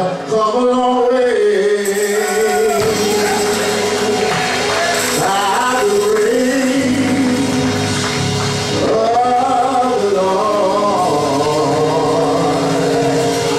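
A man singing gospel with keyboard accompaniment; a low bass line comes in about three seconds in.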